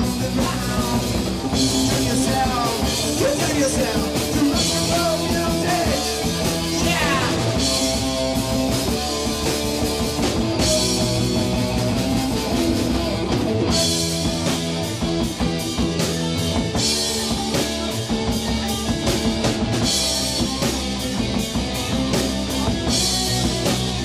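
Live rock band playing loudly: electric guitars and a drum kit with crashing cymbals, and a singer's vocals at times, with a few sliding guitar or vocal glides.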